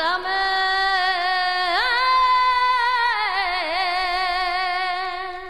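A solo voice singing one long drawn-out note with vibrato in a Rocío song, unaccompanied. It steps up in pitch about two seconds in, slides back down a second later and holds the lower note until it fades near the end.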